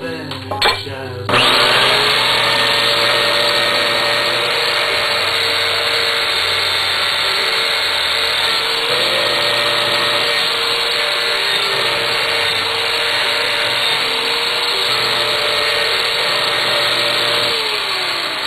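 Handheld rotary power tool, drill-type, spinning against the motorcycle engine's starter gear cover to strip off old gasket material. It starts up about a second in, runs steadily and winds down near the end.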